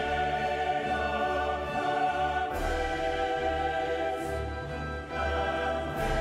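Dramatic background music with choir-like voices over orchestra, holding long chords that change about two and a half seconds in and again near the end.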